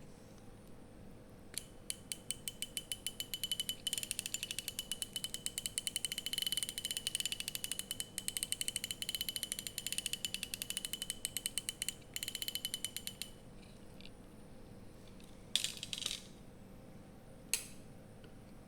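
Baitcasting reel's drag clicker clicking in a fast, even run as line is pulled off against the drag, breaking off briefly twice and stopping about two thirds of the way through. A few separate knocks follow near the end.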